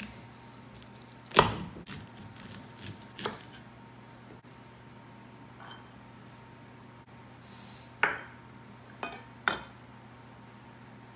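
A chef's knife cutting kernels off an ear of corn on a wooden cutting board, with a few sharp knocks of knife and cob against the board: a loud one about a second and a half in and three more near the end as the kernels are gathered into a bowl.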